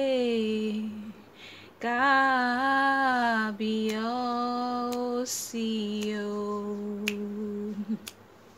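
A woman singing a Yoruba praise and worship song unaccompanied, holding long notes in several phrases, with an audible breath between them. The voice stops shortly before the end.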